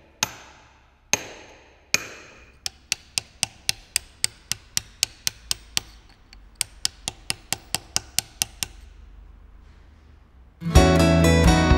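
Hammer striking a steel chisel into granite: a few single ringing blows, then a quick run of light taps about four a second, pausing briefly and stopping. Loud guitar music comes in near the end.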